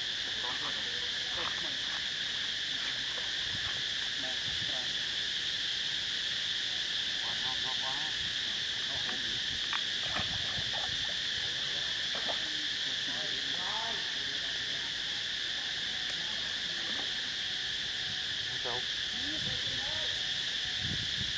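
Steady high-pitched insect chorus, a continuous drone, with scattered short chirps over it.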